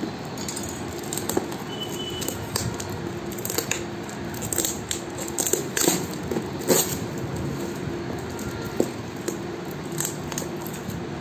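A parcel's plastic and paper wrapping and packing tape torn and crinkled by hand, with irregular crackles and sharp rips, loudest about halfway through.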